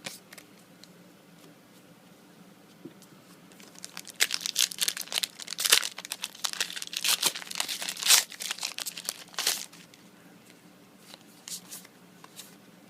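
Foil booster pack wrapper of Yu-Gi-Oh trading cards being torn open and crinkled: a dense run of sharp crackling that starts about four seconds in and lasts roughly six seconds, then a few scattered clicks.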